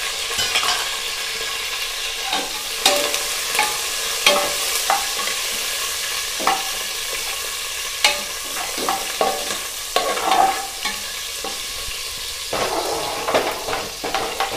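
Shallots and curry leaves sizzling in hot oil in an aluminium pressure cooker, with a steady hiss. A steel slotted spoon stirs them, clicking and scraping against the pot many times.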